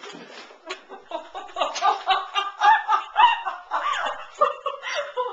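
A person laughing, quietly at first and louder from about a second and a half in.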